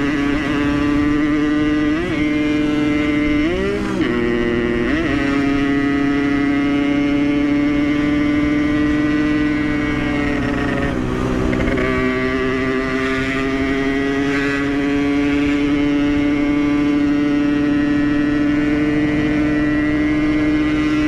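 Yamaha RX-King's single-cylinder two-stroke engine at full throttle, held at high revs with a steady pitch. The revs dip and pick up again in quick gear changes a few seconds in, and once more about halfway through.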